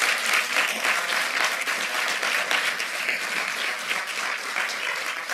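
Audience applauding: many hands clapping at once in a dense, steady patter that eases off slightly near the end.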